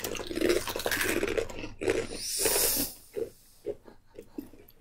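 Several people biting into and crunching hard baked cheddar cheese crisps, with a sharp rush of breath about two seconds in, then slower scattered crunches of chewing.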